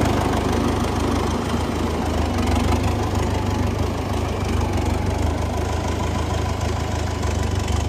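Tractor's diesel engine running steadily, with a low, rapidly pulsing rumble. It starts and cuts off abruptly.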